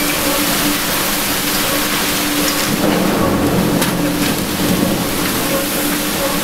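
Heavy wind-driven rain pouring onto a city street, a steady rush of noise that grows louder about three seconds in as a gust drives the rain harder.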